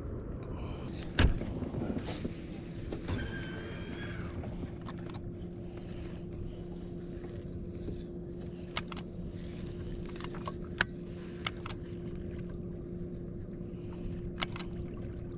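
Electric trolling motor on a fishing boat running with a steady hum, setting in about two seconds in, with a single knock just before it and a few sharp clicks later on.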